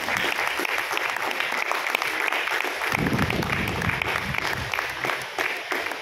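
Audience applauding: many people clapping together, a dense steady patter of claps.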